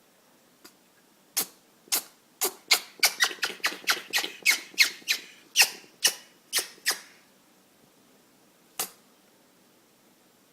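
A rapid run of about twenty short, sharp sneezes, packed up to about four a second in the middle, then one more sneeze near the end.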